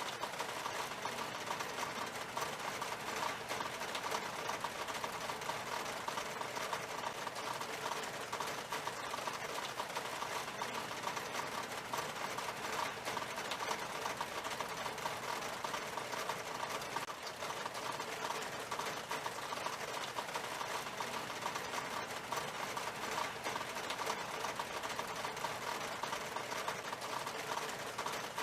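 Steady rain falling on window glass: a dense, even stream of tiny drop taps with no let-up.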